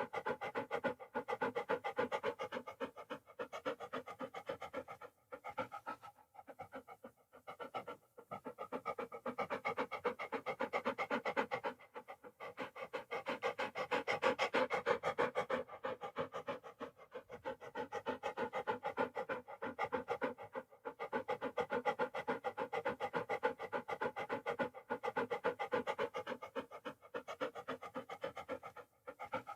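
A dog panting fast and steadily, quick in-and-out breaths with a few short pauses.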